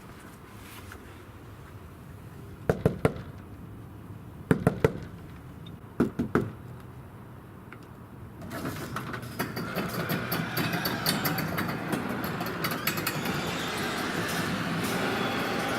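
Knocking on a door in three rounds of two or three sharp raps, about a second and a half apart. About eight seconds in, a louder steady rushing noise sets in and continues.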